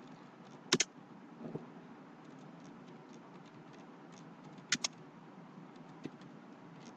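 Steady hum of a ceiling fan under faint computer keystrokes as text is typed, with two sharper double clicks, one about a second in and one near five seconds.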